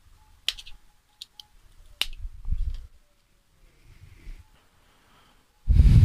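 Small screwdriver prying at the metal cap of a 12-volt motorcycle air horn, giving sharp metallic clicks and snaps, the two strongest about half a second and two seconds in, over low handling noise. Near the end there is a loud, brief rustling thump as the horn is handled.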